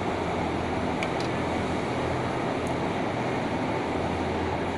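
Steady hum of running machinery with a constant low drone, with a few faint light clicks about a second in and again later.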